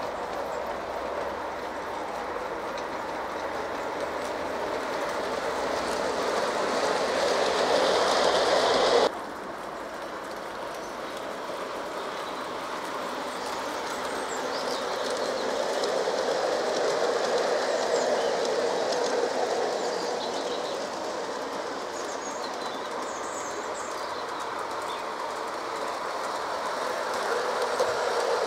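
LGB garden-scale model trains, hauled by battery-powered Corpet-Louvet locos, rolling along outdoor track with a steady clatter of wheels over the rails. The sound swells as trains pass close, drops suddenly about nine seconds in, then builds again as a rake of coaches runs by near the end.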